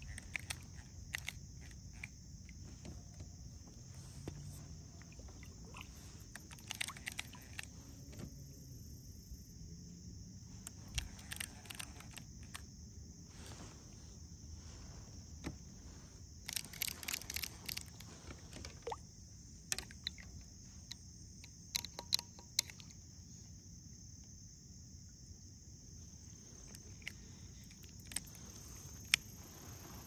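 Steady high-pitched insect chorus, with scattered light clicks and knocks.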